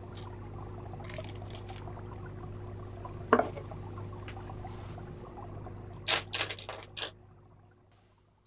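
Watercolour painting supplies handled on a hard desktop over a steady low hum. There is one sharp clink about three seconds in, then a quick run of clicks and taps about six seconds in. The hum fades out near the end.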